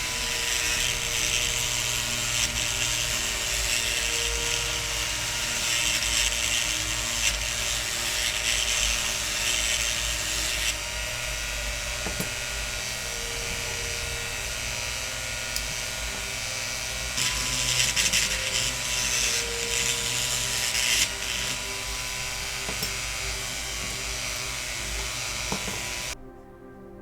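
Small power drill running steadily for about 26 seconds, its pitch and hiss rising and easing as it bites under changing load: drilling out the rivets of a diecast model car's base to take it apart. It starts and stops abruptly.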